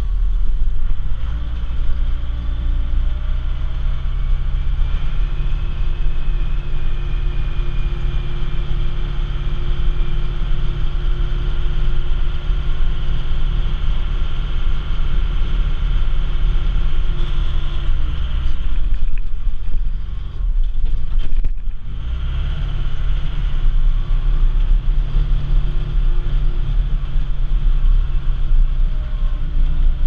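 Case 580 backhoe's diesel engine running under load while pushing snow, heard from inside the cab, with a steady whine over the engine note. About twenty seconds in the revs drop briefly, then climb back up.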